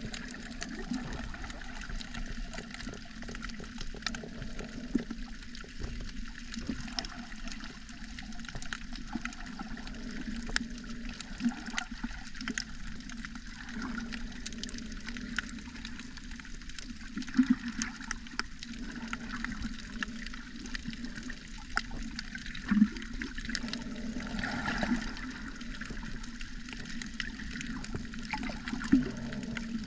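Underwater sea ambience picked up by the camera: a steady, muffled watery rush with many small sharp clicks scattered through it. A few louder knocks come in the second half.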